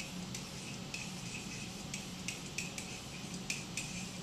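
Pen tip tapping and scratching on an interactive whiteboard as a word is handwritten: a run of light, irregular clicks over a steady low hum.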